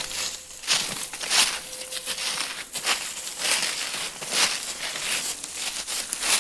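Footsteps crunching and swishing through dry grass and fallen leaves, about one step a second.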